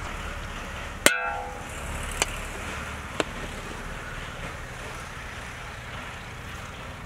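Metal ladle striking the rim of a large aluminium cooking pot: one loud ringing clank about a second in, then two lighter taps about a second apart, over a steady low background rumble.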